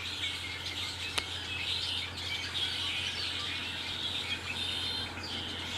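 A flock of red-winged blackbirds calling and chattering together in the trees: a dense, continuous chorus of overlapping high chirps and squawks. A single faint click comes about a second in.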